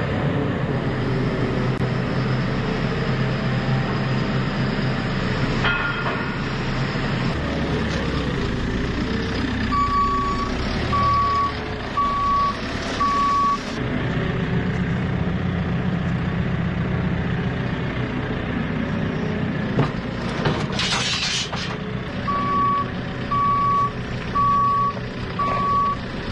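A JCB's diesel engine running steadily, with its reversing alarm beeping in two spells of regular beeps, roughly one a second. A short loud hiss comes about two-thirds of the way through.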